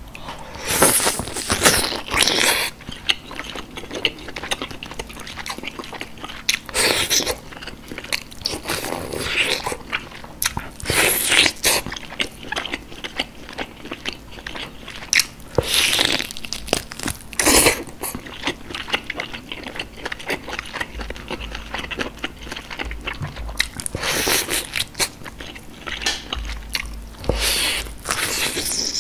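Close-miked eating sounds of a person biting and gnawing soft boiled meat off a large beef short rib bone from galbitang, then chewing, in irregular wet bursts.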